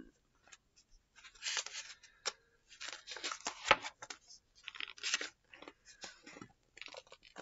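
Pages of a picture book being turned and handled: a string of papery rustles and swishes, with one sharp tap a little past halfway.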